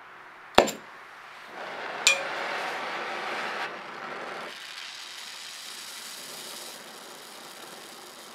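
A sharp click, then a second one about a second and a half later as a gas torch is lit, followed by the torch flame hissing. The hiss is loudest for the first couple of seconds, then drops back to a lower steady hiss.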